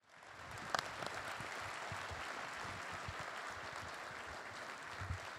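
Audience applauding, fading in at the start and then holding steady, with one sharper crack under a second in.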